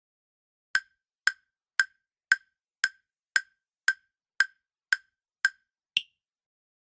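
Quiz countdown timer sound effect: short, sharp ticks about two a second, eleven in all, the last one higher-pitched, marking the end of the answer time.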